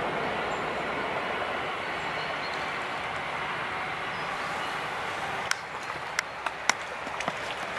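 Gravel and maggots being stirred together by hand, a steady gritty rubbing and grinding, then from about five seconds in a run of sharp clicks of stones knocking together.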